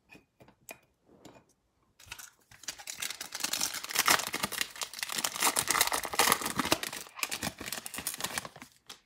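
A trading-card pack wrapper being torn open and crinkled by hand, with dense crackling for about seven seconds. It follows a few soft clicks of cards being handled.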